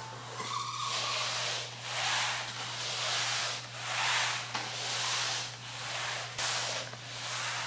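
Spray mop pad sliding back and forth across a hard floor: repeated swishes, about one a second.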